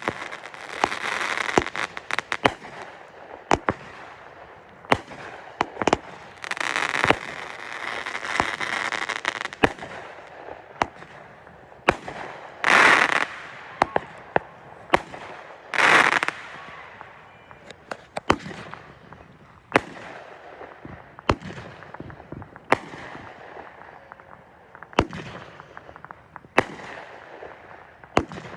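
Consumer fireworks going off: a string of sharp bangs, with stretches of crackling and two louder bursts about midway, the reports thinning out toward the end.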